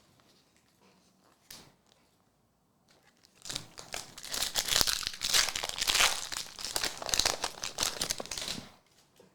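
A trading card pack wrapper being torn open and crinkled by hand: a dense run of crinkling and tearing that starts a few seconds in and lasts about five seconds.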